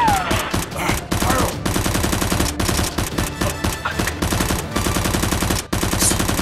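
Rapid automatic gunfire sound effects, a dense string of shots laid over a Nerf blaster fight, breaking off briefly near the end.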